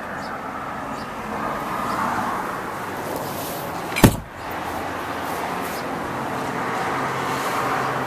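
Steady background noise, with a single sharp knock about four seconds in.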